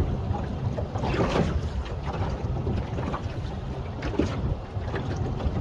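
Small boat on open sea: water washing and slapping against the hull in irregular splashes over a steady low rumble, with wind buffeting the microphone.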